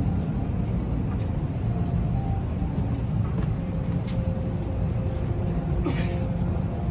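Steady low rumble of an Airbus A321neo's cabin during boarding at the gate, the engines not yet started, with a few faint clicks over it.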